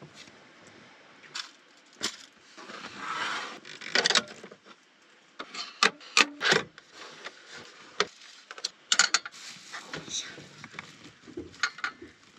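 Handling noise: a scattered run of sharp knocks, clatters and scrapes of hard objects being set down and moved about, with a few short rustling smears.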